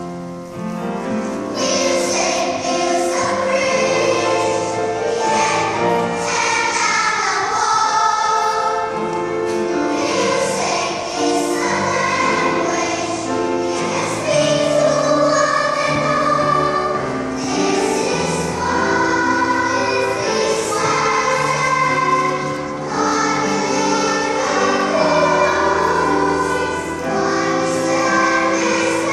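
Large children's choir singing, with long held notes.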